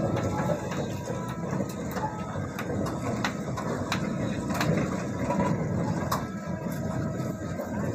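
Winch hauling a steel boat cradle up slipway rails: a steady mechanical drone with scattered sharp knocks and clicks from the cradle on the rails.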